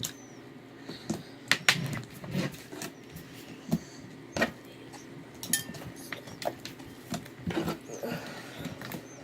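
Slime being worked in a bowl, with irregular sharp clicks and small pops.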